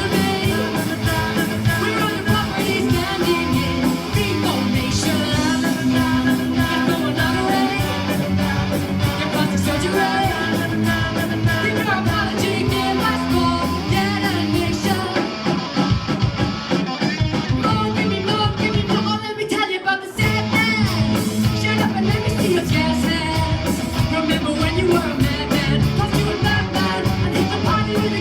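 Rock band playing a song live, with singing over guitar and a steady beat; the music drops out briefly about twenty seconds in, then comes back in full.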